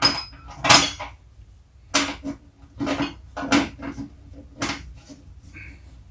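Irregular metal clanks and clatter, about eight sharp knocks spread over a few seconds, as tools and hardware are handled at a snowblower's steel auger housing.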